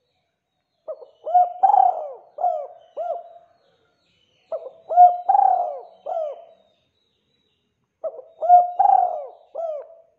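Spotted dove cooing: three phrases of about five notes each, a couple of seconds apart.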